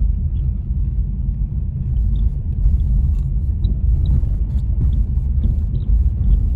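Steady low rumble of a car driving, heard from inside the cabin, with a few faint light ticks.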